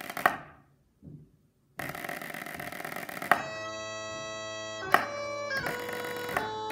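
A snare drum roll, then about three seconds in, Highland bagpipes strike in, drones holding under the chanter melody of a quick march, with sharp drumstick strikes on top.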